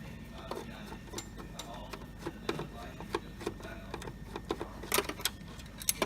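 Irregular light clicks and taps of a screwdriver and hands working the mounting screws of a note acceptor in a vending machine door, with a few sharper clicks near the end.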